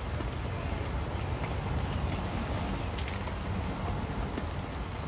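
Egg and oysters frying in hot oil in a pan: a steady sizzling hiss with a few faint crackles.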